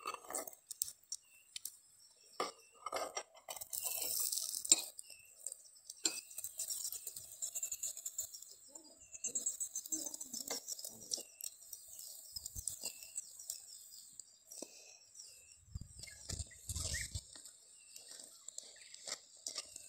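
A metal spoon clinking and scraping against a chapati in a cast-iron pan as oil is spread over it, in many short irregular strikes. A few low thumps come near the end, and short chirps repeat faintly through the middle.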